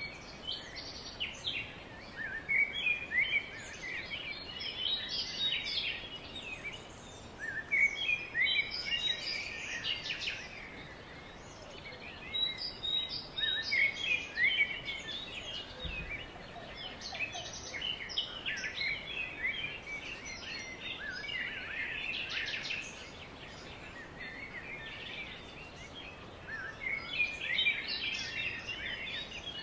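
Songbirds singing in repeated bouts of quick chirps and short sweeping notes, a phrase every few seconds, over a faint steady outdoor hiss.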